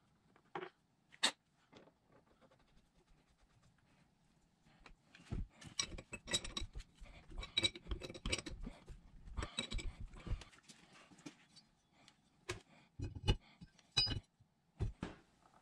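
Metal hand tools and parts clinking and knocking against a hydraulic pump on a workbench: a couple of sharp clicks, then a few seconds of dense clattering with dull thumps, then more scattered clicks near the end.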